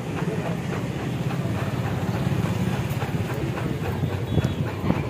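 Steady low engine rumble with general street background noise.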